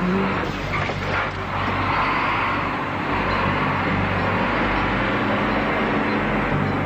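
A heavy concrete mixer truck's engine running steadily, with a low drone, as the truck drives.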